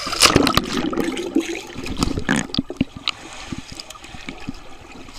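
Swimming-pool water splashing and bubbling around a camera dunked at and below the surface, with a swimmer's bubbles rushing past. There are many small crackles and pops, loudest in the first second.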